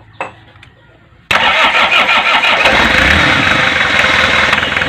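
Toyota 2C four-cylinder diesel engine starting suddenly about a second in, then running loudly. It now starts because its injection pump's fuel shut-off valve is powered again after a blown fuse was replaced.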